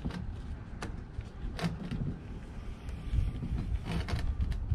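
Several sharp plastic clicks and knocks as hands work at the spark plug cap on the Echo PB-2520 leaf blower's plastic housing. The engine is not running. A continuous low rumble of wind on the microphone lies under the clicks.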